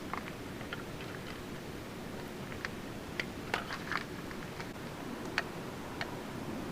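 Scattered light clicks and taps of hand tools and small parts being handled during motorcycle work, over a steady hiss.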